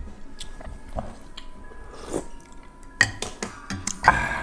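Close-up eating sounds of a person chewing soft wontons in broth, with a few sharp clicks of a metal spoon against a ceramic bowl, clustered about three seconds in.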